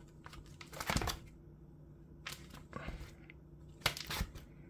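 Plastic card-binder pocket pages crinkling and rustling as they are turned by hand, in several short rustles.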